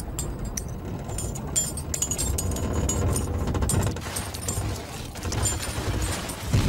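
Many coins clinking and tumbling over a low, steady underwater rumble, as a cartoon sound effect.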